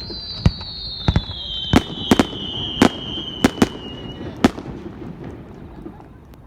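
Fireworks going off: about ten sharp, irregularly spaced cracks, with a thin high whistle that slowly falls in pitch and dies away about four seconds in.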